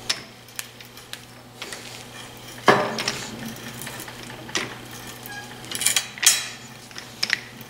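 Irregular sharp metallic clinks and clanks while holes are tapped in a steel adapter plate on a tapping machine, with steel tools and the plate knocking together, over a low steady hum. The loudest clank comes a little under three seconds in.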